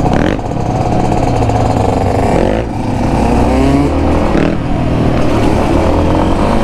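Yamaha XT250's single-cylinder four-stroke engine pulling under throttle while the bike is ridden. The engine pitch climbs and drops back twice, about two and a half and four and a half seconds in, as the revs rise and fall.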